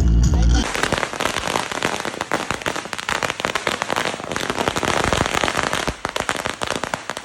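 A long string of firecrackers going off in rapid, dense crackling succession for several seconds, starting about a second in.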